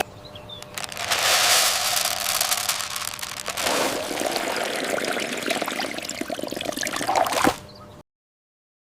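Liquid pouring and trickling, a steady splashy hiss that starts about a second in and stops abruptly with a click near the end.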